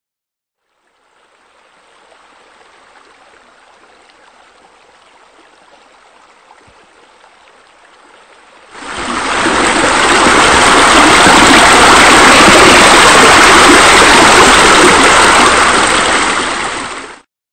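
Steady running water, like a waterfall spilling into a pool. It is faint at first, becomes suddenly much louder about nine seconds in, and cuts off abruptly shortly before the end.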